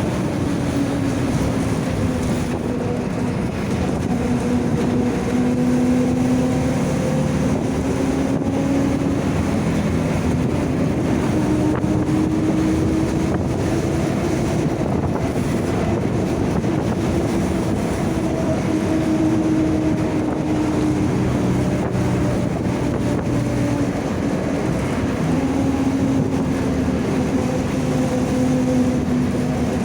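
Mercedes-Benz OF-1722M bus on the move, its differential whining. The whine is a steady tone that slowly rises and falls with road speed, over the engine and road noise.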